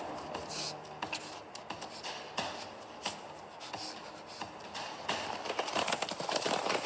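Rustling and footsteps through forest undergrowth, with many small crackles and snaps; it grows louder and busier about five seconds in.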